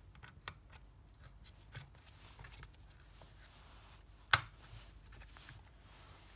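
Light plastic clicks and handling noise as the heater resistor is clipped back into a BMW heater blower motor housing, with one sharp snap a little over four seconds in.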